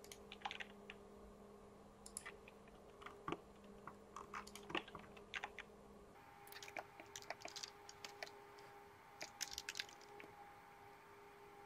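Faint, irregular clicking of a computer keyboard and mouse, coming in small flurries, over a low steady electrical hum.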